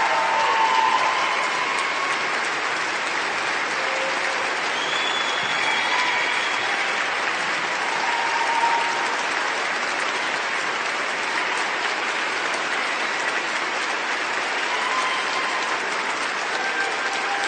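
Large crowd applauding, a dense, steady wash of many hands clapping that keeps an even level without dying away.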